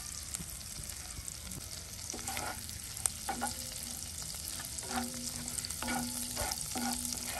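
Chopped garlic sizzling in melted butter in a cast-iron skillet. From about two seconds in, a wooden spatula stirs it in short strokes across the pan.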